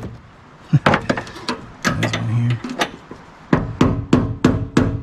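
Hand hammer striking metal in the truck's fuel tank access hole, most likely to seat the refitted fuel pump assembly. The blows come unevenly at first, then about three and a half seconds in they settle into a steady run of about four a second.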